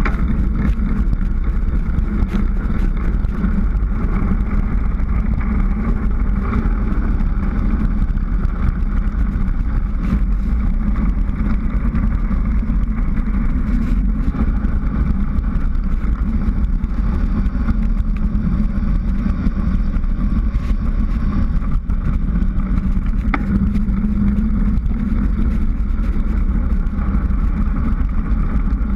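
Steady wind rush on the microphone of a bicycle speeding downhill, with the low rumble of tyres on asphalt underneath.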